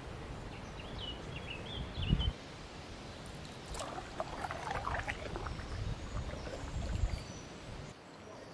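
Canoe paddling: water splashing and dripping from paddle strokes, with a single thump about two seconds in. A bird chirps briefly about a second in.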